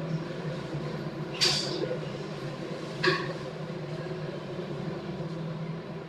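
Room tone with a steady low hum and two short, sharp noises about a second and a half apart.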